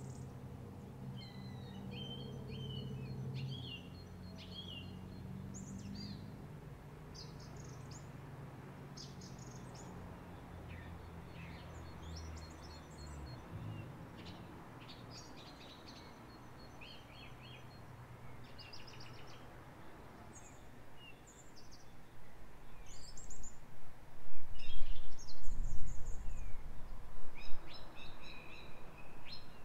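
Garden birds chirping and singing throughout, over a low steady hum that dies away about halfway through. In the last quarter, gusts of wind buffet the microphone in loud, uneven rumbles, the loudest sound.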